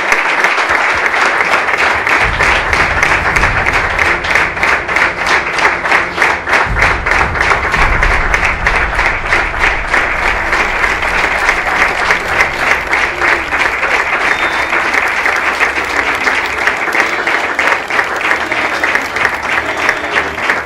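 Crowd applauding steadily: many hands clapping in a dense, even patter.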